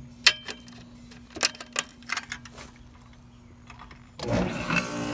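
Clicks and knocks as the pull-out fuse block is pushed into an air-conditioner condenser disconnect box. About four seconds in, the outdoor condenser unit starts with a sudden, loud, steady hum, showing that power is reaching it again.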